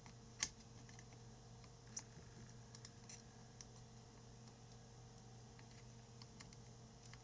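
Sparse, irregular light clicks and taps of small hand tools working on a laptop motherboard during soldering, the sharpest about half a second in. Under them runs a faint steady hum.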